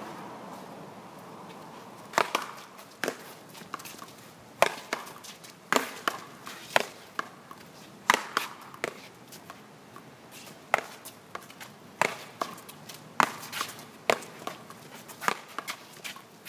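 A paddleball rally: sharp knocks about once a second as the rubber ball is struck by solid paddles and rebounds off the concrete wall and court. The knocks start about two seconds in and run on irregularly.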